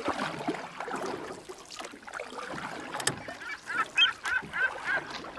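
Bird calls: a quick run of short, repeated pitched calls, about four a second, beginning about three and a half seconds in, over a jumble of background noise, with a sharp click just before the calls start.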